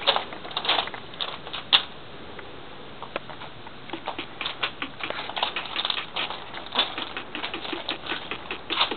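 Footsteps crunching on loose gravel, heard as irregular short crunches and clicks that come thicker from about halfway through.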